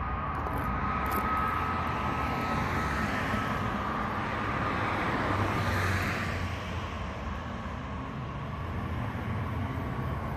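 Vehicle noise swelling to a peak about six seconds in and then fading back, over a steady background hum.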